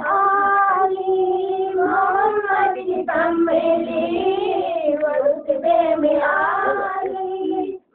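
A high solo voice singing a naat, an Urdu devotional song in praise of Muhammad, holding long, wavering notes. It breaks off for an instant just before the end.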